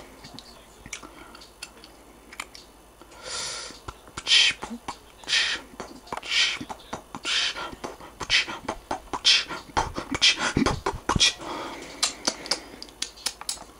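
Music with a steady rhythmic beat, breathy percussive vocal sounds about once a second and sharp clicks in between, playing from the MacBook Pro's built-in speakers during its first-start welcome sequence.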